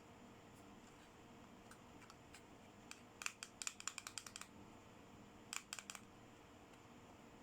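Small toy accessories and their packaging being handled, giving sharp crisp clicks: a quick run of about ten near the middle and three more a second or so later, against near silence.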